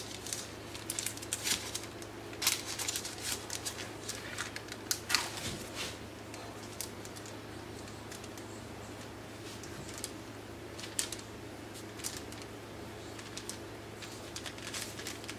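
Parchment paper rustling under fingers as the edge of a pizza dough is crimped, with scattered light clicks that come thickest in the first half. A low steady hum runs beneath.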